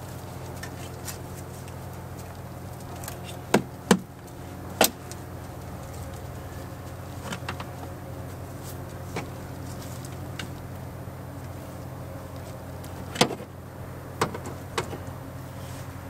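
Sharp clicks and knocks from hands handling fuel injector wiring plugs in an engine bay, in two clusters about four and fourteen seconds in, over a steady low hum.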